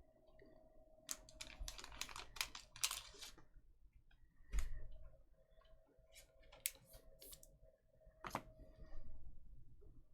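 Faint scattered clicks and short rustles of trading cards and their hard plastic holders being handled, in irregular clusters with a few sharper snaps.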